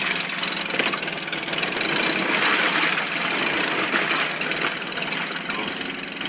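Honda BF6 four-stroke 6 hp outboard motor running steadily with its leg in a barrel of water.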